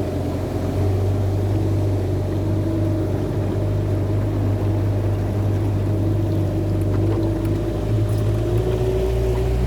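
Motorboat engine running steadily under way, its pitch shifting slightly near the end.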